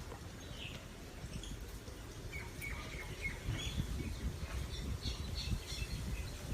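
Wild birds calling outdoors: scattered short chirps and squawks, including a quick run of notes near the middle, over a low rumble of wind or ambient noise.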